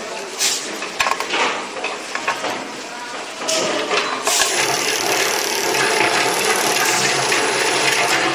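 Light clicks and knocks as tools and a plastic bobbin are handled at a coil winding machine. About three and a half seconds in, a steady mechanical whirr with a faint hum sets in: the HF-5808 coil winding machine running.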